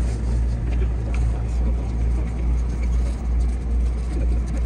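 Steady low rumble and hum inside the driver's cab of a 207 series electric train standing at a platform, with a few faint clicks.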